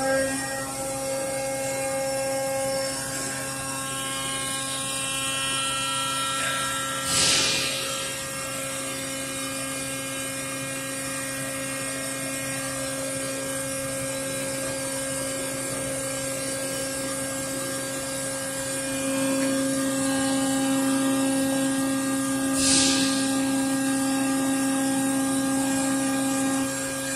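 Horizontal mandrel CNC tube bending machine running with a steady hum. The hum swells louder about two-thirds of the way in, and there are two short hisses, about 7 and 23 seconds in.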